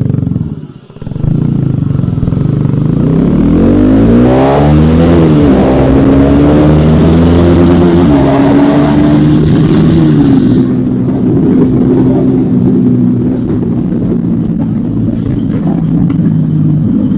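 Motorcycle engine and exhaust pulling away under acceleration, the pitch climbing and then dropping at each gear change, twice. It then settles into a steady cruise for the last several seconds.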